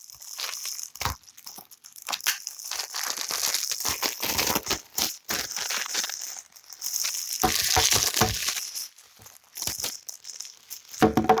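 Blu-ray packaging being crinkled and torn open by hand: crackling, rustling plastic and paper in uneven stretches with many sharp crackles.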